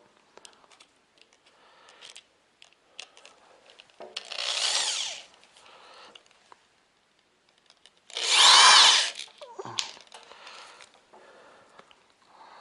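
Power drill driving screw-in ice studs into a dirt bike tire: two short runs about four seconds apart, each speeding up and then slowing down. Faint clicks and handling noises fill the gaps between them.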